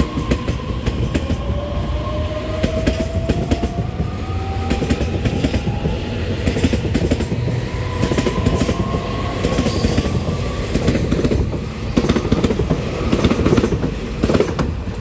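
A twelve-car EMU3000 electric multiple unit pulls out and accelerates past, its electric drive giving a whine that rises slowly in pitch. Its wheels click repeatedly over rail joints under a steady rumble.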